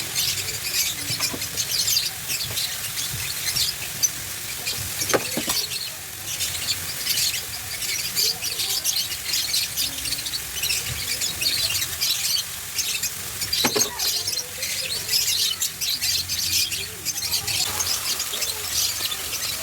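Bitter melon and egg sautéing in a pan, the oil sizzling and crackling steadily, with two sharp knocks, one about five seconds in and one near the end.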